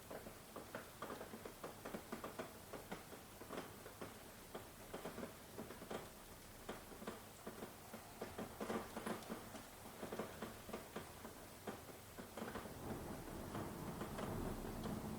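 Rain falling, heard as close, irregular drips and patter of drops hitting a surface. A low rumble of distant thunder swells in near the end.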